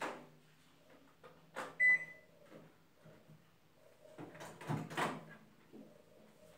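Kitchen handling sounds over a low steady hum: a click and a knock, then a single short high-pitched beep from a microwave oven's keypad about two seconds in. A burst of clattering and knocking follows between four and five seconds.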